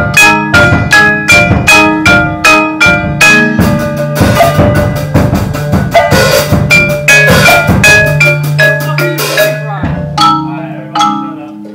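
Mallet percussion, marimba-like, playing a rhythmic piece of evenly struck notes about three a second over a held low note. The notes thin out near the end.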